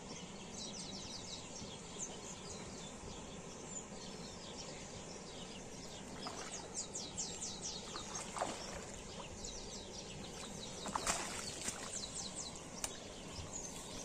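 Birds chirping in quick high runs over a steady outdoor background, with a hooked fish splashing at the water surface in the second half, loudest about 11 seconds in, as it is netted.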